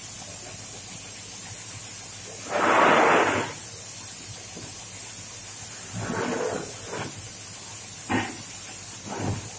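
Compressed-air spray gun hissing steadily as it sprays glossy coating over concrete paver tiles, with a louder, fuller rush of air lasting about a second, roughly three seconds in.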